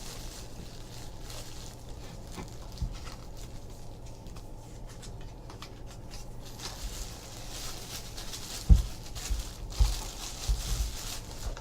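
Faint rustling as packaging and an autographed baseball are handled, with a few soft knocks about three-quarters of the way in.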